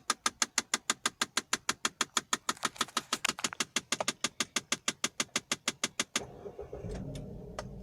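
Rapid, even clicking, about seven clicks a second, from behind the dashboard of a 2009 Kia Sportage with the ignition on and the engine off: an unexplained fault the owner has not been able to trace. About six seconds in the clicking stops as the engine is started, and it settles into a steady idle.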